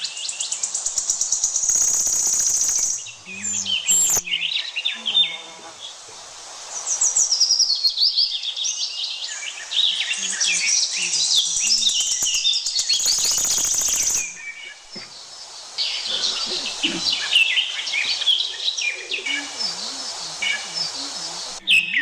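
A chorus of many forest birds chirping and whistling over one another. Two loud stretches of rapid buzzing trills break in, one a couple of seconds in and one just past the middle.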